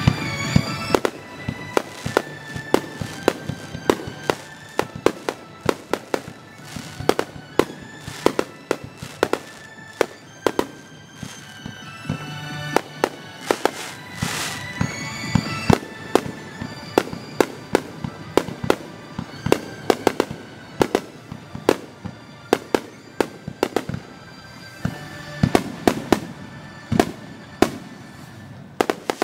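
Aerial firework shells bursting in quick succession, dozens of sharp bangs, often two or three a second, with music playing underneath; the recording runs at double speed.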